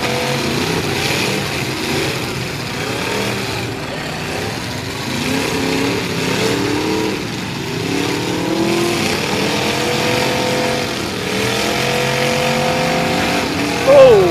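Several full-size pickup truck engines revving in a demolition derby, their pitches rising and falling as the trucks drive and push against each other. Near the end comes a short, loud, falling squeal.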